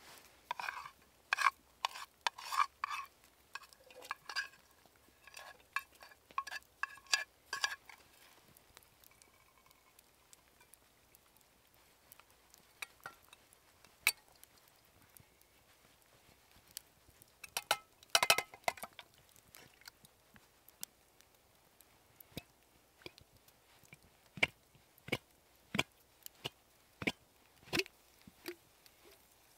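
A plastic spoon scraping and knocking against metal camping pots, with quick clinks that ring briefly, during the first several seconds. After that, occasional single sharp clicks and taps, with a short flurry about two-thirds of the way in.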